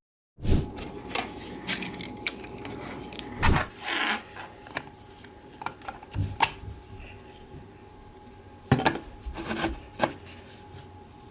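Hands handling and fitting 3D-printed plastic parts: scattered sharp clicks and taps with short rubbing scrapes, the loudest clusters about three and a half to four seconds in and again around nine seconds in.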